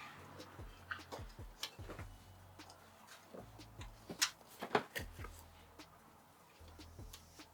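Scattered light clicks and taps of PC parts and screws being handled during assembly, with two sharper knocks about four to five seconds in.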